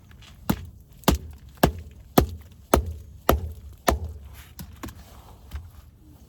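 Axe chopping firewood: seven sharp blows at an even pace of about two a second, then a few lighter knocks.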